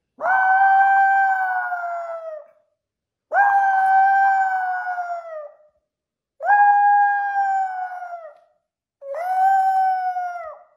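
Maltipoo howling: four long, high howls, each held about two seconds and sliding down in pitch as it ends, with short pauses between.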